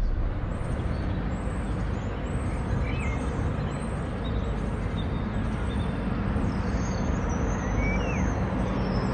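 Outdoor background ambience: a steady low rumble like distant traffic, with a few faint bird chirps, about three seconds in and near the end.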